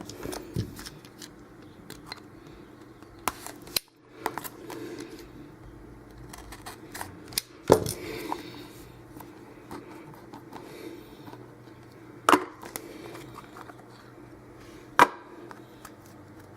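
Trading cards and their packaging being handled: soft rustling and sliding, with a few sharp clicks and taps spread through, over a steady low room hum.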